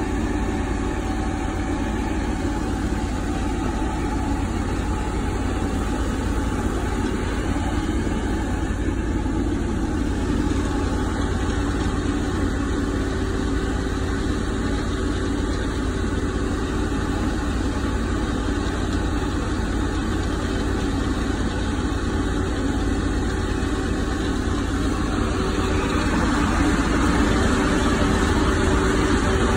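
Hopster 5G hop harvester running steadily as hop bines are fed through its picker, a constant mechanical drone that grows louder near the end.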